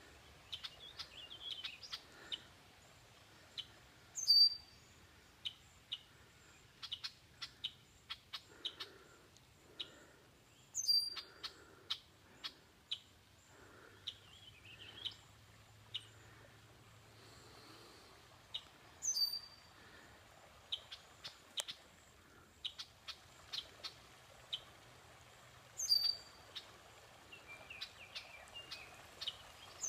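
Birds calling in woodland: one loud, high call repeats about every seven seconds, four times, over many short, scattered chirps from other birds.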